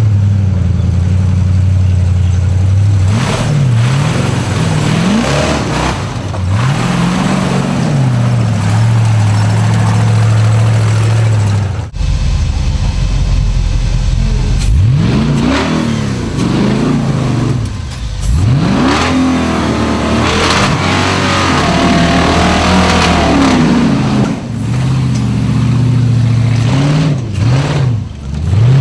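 Rock buggy engine idling and revving repeatedly as the buggy climbs rock ledges. The pitch rises and falls many times over a steady, loud engine note.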